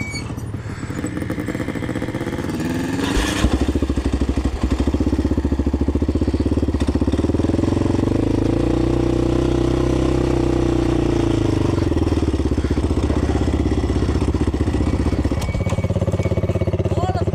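ATV engine running under way; its pitch climbs over several seconds, holds, then eases back down. A short clatter comes about three seconds in.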